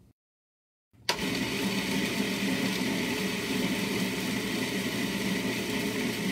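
Countertop food processor motor switched on about a second in and running steadily, blending a thick, sticky mixture of dates, nuts and cacao.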